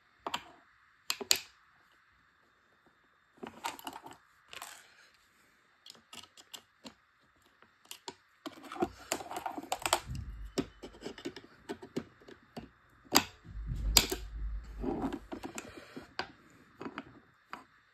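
Clicks and clacks of metal parts as the voice-coil magnet plate is set back onto an open hard drive and pressed into place. The clicks are sparse at first and come thick and fast from about halfway, with a few dull knocks of the drive on the table.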